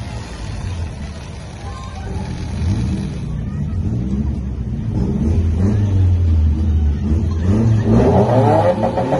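Subaru WRX's turbocharged flat-four engine idling and then being revved repeatedly at the drag-strip start line, each rev a rising sweep in pitch, getting louder toward the end with the loudest, highest revs in the last two seconds.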